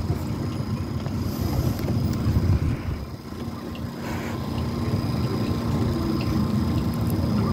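Wind buffeting the microphone: a low, uneven rumble that dips briefly about three seconds in.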